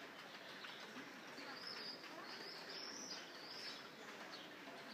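Steady hiss of light rain, with a bird giving a quick run of about five high chirps in the middle.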